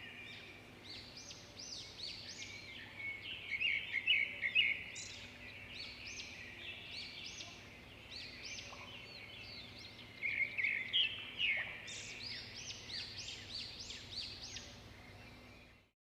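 Several birds chirping and calling in quick repeated notes, with louder flurries a few seconds in and again about two thirds of the way through; the birdsong cuts off suddenly near the end.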